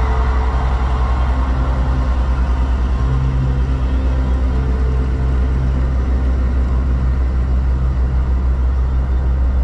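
Truck engine and tyre noise while driving along a road, a steady low drone with an even pulse, heard from inside the cab.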